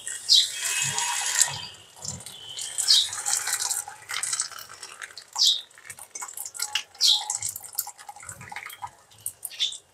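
Hot water being poured off parboiled ash gourd pieces, loudest in the first two seconds, then trickling and dripping with scattered short clinks and knocks.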